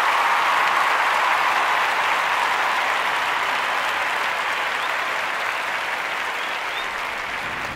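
A crowd applauding: steady clapping that slowly fades.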